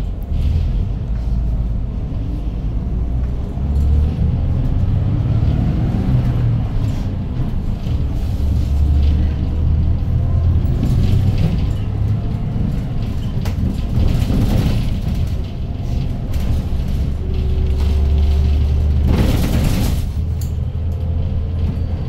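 A 2013 Hyundai Green City city bus under way, heard from inside the cabin: its 240 hp CNG engine gives a deep, steady rumble. A short burst of air hiss comes about three-quarters of the way through.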